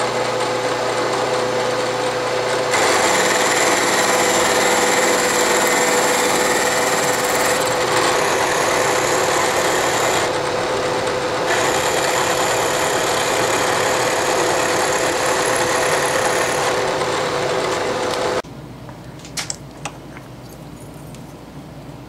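Milling machine running with an end mill cutting a metal block held in a vise: a steady motor hum with one fixed tone, and from about three seconds in a loud cutting noise with high whines that pauses briefly midway and then resumes. It cuts off abruptly near the end, leaving quieter background and a couple of faint clicks.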